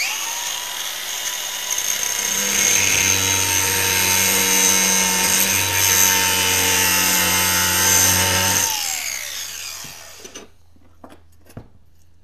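Cordless DeWalt angle grinder spinning up with a steady whine, then grinding metal off the mounting eye of a hydraulic top-link cylinder for about six seconds so it will fit. Near nine seconds it is released and winds down with a falling whine, followed by a few light taps.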